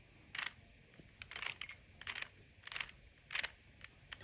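Plastic Rubik's cube layers being turned by hand: a run of short clicking rattles, one every half second or so. These are the last turns of the final step, just before the cube is solved.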